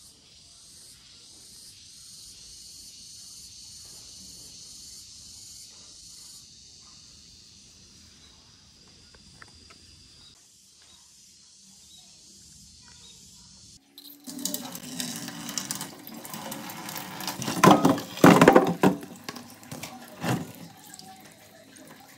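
Faint, high insect chirring with a regular pulse in a garden for the first part. About fourteen seconds in, it gives way to a kitchen tap running hard onto sapodilla fruits in a stainless steel sink, splashing and clattering as they are rinsed, loudest a few seconds later.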